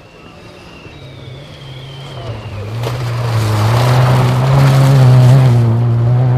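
Rally car approaching on the stage, its engine running hard and growing steadily louder, loudest about five seconds in, with a rushing noise from the car as it comes close.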